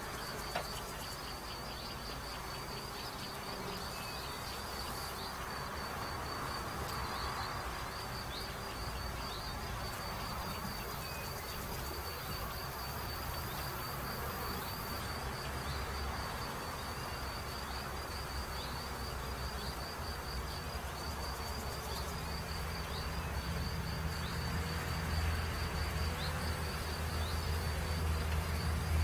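Honeybees buzzing as they fly in and out of a Warré hive entrance, the hum growing a little louder in the last few seconds. A steady, high-pitched pulsing chirr from another insect runs underneath.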